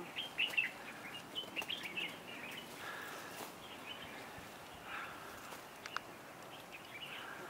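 Small birds chirping in short high calls, thickest in the first two seconds and then scattered, over faint steady background noise.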